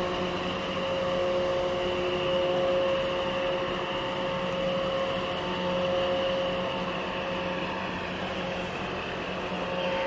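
Steady drone of ships' diesel engines, from the tugboat and the container ship manoeuvring close by, with a constant hum of several steady tones.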